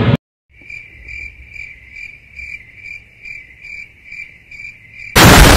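Cricket chirping sound effect: a steady high chirp repeating about two and a half times a second, the stock 'crickets' gag for a long wait with nothing happening. Near the end a sudden loud rush of noise cuts in over it.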